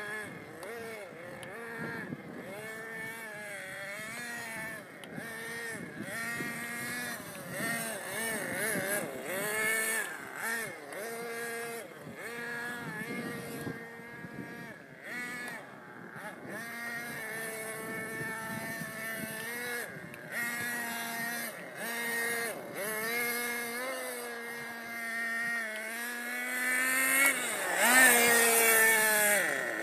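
Two-stroke .21 nitro glow engine of a 1/7-scale Bycmo RC car, revving up and down over and over as the car is driven, its whine rising and falling. It is loudest near the end, as the car passes close, and its pitch dips as it goes by.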